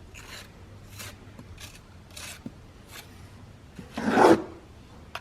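Trowel scraping lime mortar into brick joints during repointing, in short strokes about one every half second to second, with a longer, louder scrape about four seconds in.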